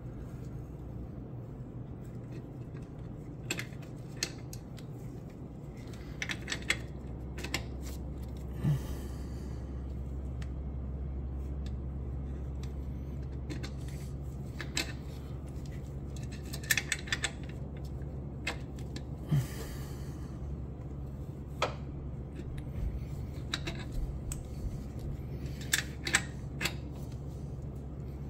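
Ratchet wrench clicking in scattered single ticks and short runs as it turns a fuel injector puller tool on a BMW S63 V8, with brief metallic scrapes and a steady low hum underneath.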